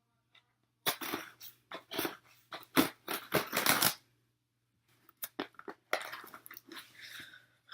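A cardboard shipping box being cut and torn open: a run of scraping, tearing strokes for about three seconds, then after a pause lighter rustling and clicks as the box is worked at.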